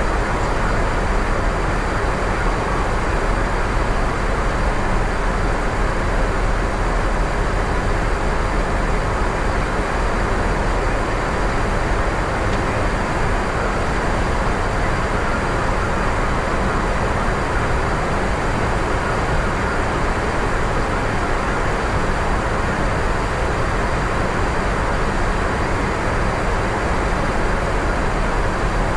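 Steady flight-deck noise of an Airbus A350-900 in flight: a constant rush of airflow and ventilation with a low rumble underneath, unchanging throughout.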